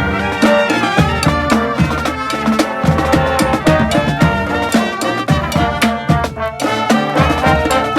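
A street brass band playing live: horns carrying held notes and a melody over a steady, busy drum beat.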